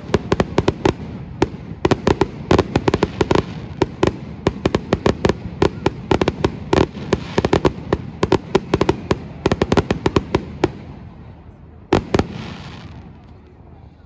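Fireworks display: a rapid barrage of aerial shells bursting in loud bangs and crackles, several a second. The barrage stops about eleven seconds in, then a last pair of bangs and a brief crackle come near the end.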